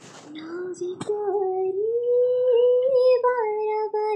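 A recorded singing voice played back, holding long, slightly wavering high notes, its background noise largely removed by noise reduction. A short click about a second in.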